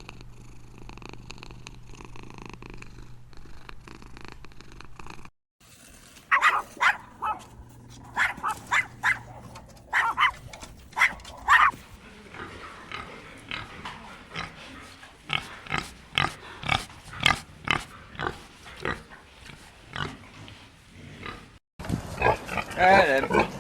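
Pigs grunting and squealing in short, irregular bursts, then in a quicker run of shorter grunts. This comes after a few seconds of steady low hum.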